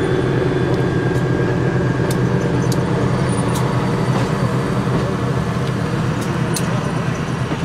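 Budd RDC rail diesel car's diesel engines running steadily with a low, even hum, with a few scattered sharp clicks.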